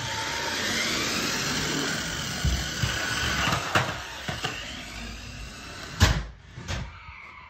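Toy race car's motor whirring as it runs across a wooden floor, its whine rising and falling, with a few knocks and a loud thump about six seconds in.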